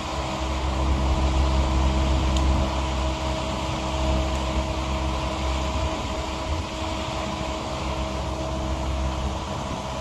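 Vermeer mini-skidsteer engine running steadily as the machine works, a constant drone with a low rumble that is somewhat louder from about one to three seconds in.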